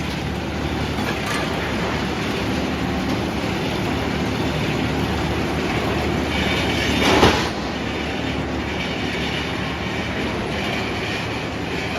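Sawmill machinery running steadily with a low engine hum and mechanical rattle, and one short loud burst of noise about seven seconds in.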